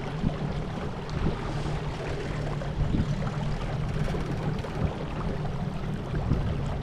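Small boat under way on an electric trolling motor: water rushing and splashing along the hull, over a steady low hum.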